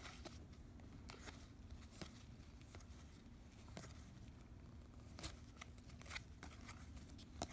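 Faint flicks and slides of hockey trading cards being flipped one by one through a stack held in the hand, a soft stroke about every second.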